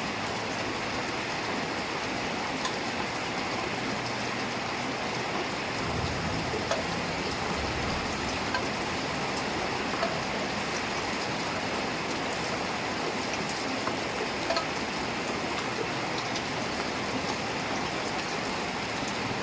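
Heavy rain falling steadily, with scattered individual drops ticking on nearby surfaces. A low rumble comes in about six seconds in and fades out a couple of seconds later.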